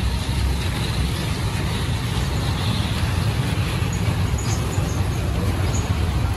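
A steady low rumble with an even background hiss, unchanging throughout.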